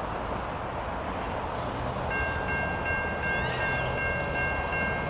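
Railroad grade crossing warning bell starting to ring about two seconds in, a rapid high-pitched ringing that signals an approaching train, over steady traffic noise.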